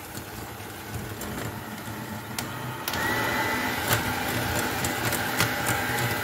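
Electric hand mixer running, its beaters whisking egg yolks with sugar in a glass bowl, with occasional clicks. About three seconds in it gets louder and a steady whine comes in.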